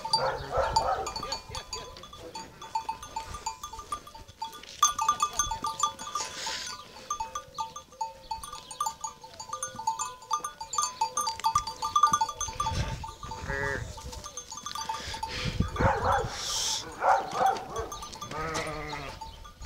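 Sheep bells clinking over and over as a flock of sheep moves about. A sheep bleats twice in the second half.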